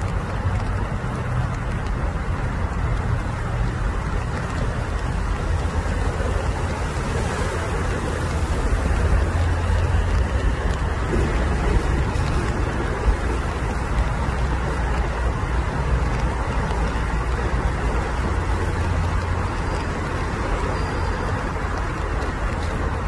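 Steady low rumbling background noise with a hiss and no distinct voices or calls, with one short knock about thirteen seconds in.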